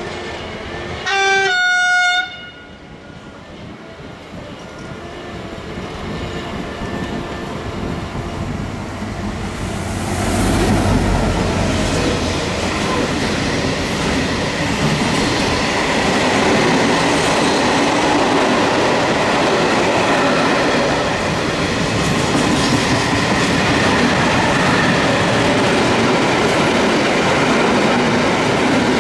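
Container freight train behind a diesel locomotive: a short two-note horn about a second in, the lower note first. The train then approaches and passes close by, the locomotive going past about ten seconds in, followed by the steady noise of the container wagons' wheels on the rails.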